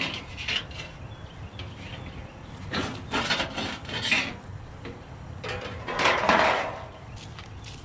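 Handling noise from a flat decorative pumpkin sign as it is gripped, turned over and shifted on the sidewalk: a few bouts of scraping and rubbing, the longest about six seconds in.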